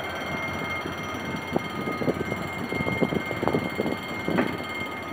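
Locomotive-hauled passenger coaches rolling slowly past as the train arrives at a station, the wheels knocking and clicking irregularly over the rail joints, over a steady rumble with a thin steady whine.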